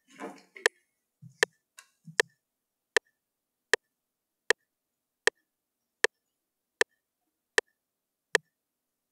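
FL Studio's software metronome clicking steadily, a little more than once a second, counting in before recording starts. A few faint soft knocks come in the first two seconds.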